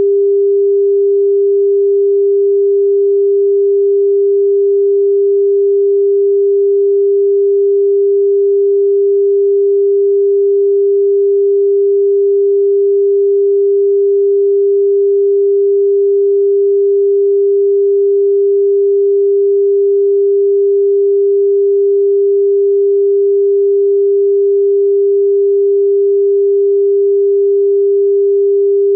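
Steady pure sine tone at about 399.5 Hz (399.471 Hz), one unchanging pitch with no overtones. It is the frequency assigned to balloonflower root (Jie Geng, Platycodon).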